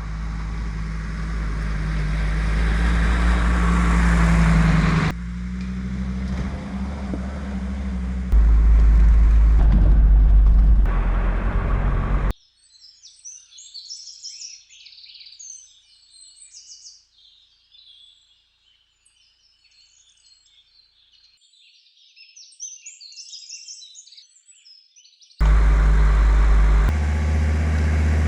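Mercedes G 250 GD Wolf's five-cylinder diesel engine running, its pitch and level jumping abruptly twice as takes are cut together. About twelve seconds in it cuts out to birds singing and chirping alone for about thirteen seconds, then the engine cuts back in loudly near the end.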